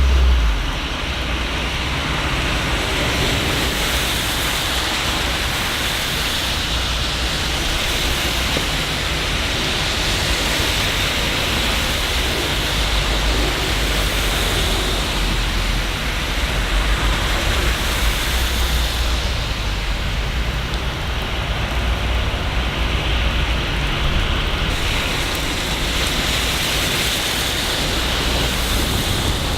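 Steady rain, an even hiss, with a low rumble underneath that swells and fades.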